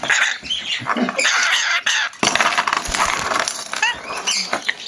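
Lorikeet screeching and chattering harshly, broken by short sharp chirps, with a few light metallic clinks of keys being tossed about.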